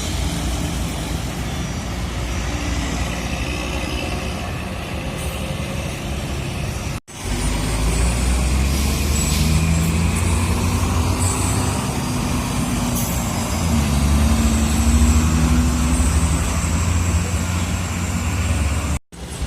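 Heavy road traffic: big diesel buses and trucks running and passing, with a deep engine rumble that grows heavier about a third of the way in.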